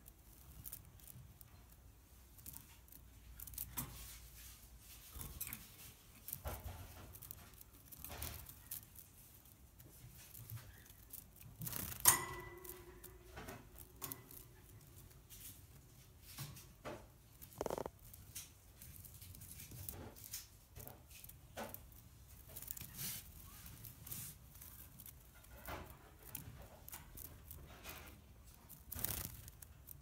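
Scattered light rustles and clicks from a wire birdcage holding a sparrow, with one sharp metallic clink that rings briefly about twelve seconds in.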